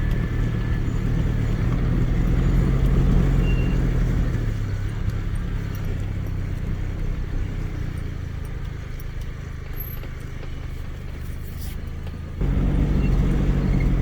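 Suzuki Grand Vitara SUV driving off road: a steady low engine and road rumble that eases off about four seconds in and jumps back louder suddenly near the end.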